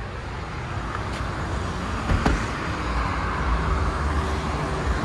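Traffic on a highway: a steady rush of passing vehicles, with a single sharp knock a little over two seconds in.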